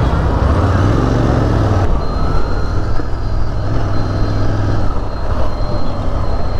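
A motor vehicle's engine running with a steady low hum over road noise; a faint high whine joins about two seconds in.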